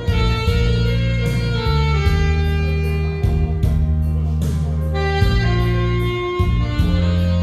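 Saxophone playing a slow melody of held notes over a backing accompaniment with bass and guitar.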